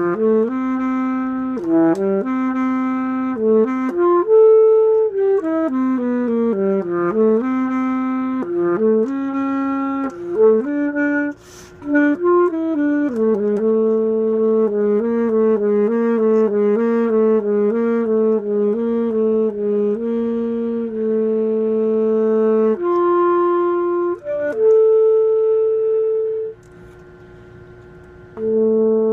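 Unaccompanied saxophone playing a slow, lyrical melody one note at a time, with a stretch of quick alternating notes in the middle and a rest of about two seconds near the end.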